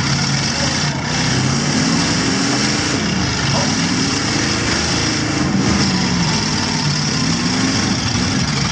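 V8 engines of demolition-derby pickup trucks running hard and being revved, their pitch rising and falling over and over.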